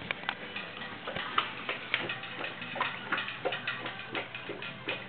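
Boerboel puppy eating from a stainless steel bowl on a raised stand: quick, irregular clicking of food and bowl, several clicks a second.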